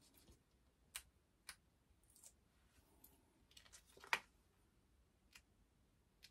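Faint ticks and soft rustles of vinyl and tape being handled and pressed down on a cutting mat, with a handful of small sharp clicks and one louder tap about four seconds in.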